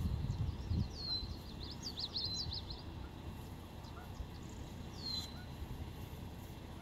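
Small birds calling in the open: a short note that drops in pitch and then holds, repeated three times, and a quick run of chirps about two seconds in. A low rumble sits under the first second.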